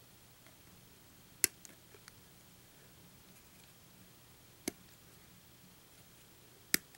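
Hobby nippers cutting a plastic model-kit part off its runner: three sharp snips a few seconds apart, over a faint low hum.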